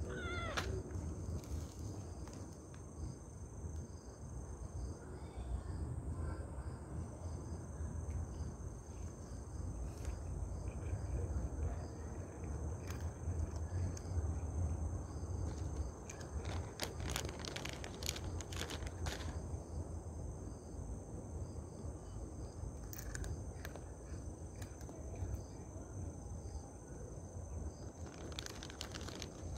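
A cat chewing crunchy dry treats, short crunching clicks in bursts that come and go, loudest in a run about 17 to 19 seconds in. Behind it, a steady high insect drone and a low rumble.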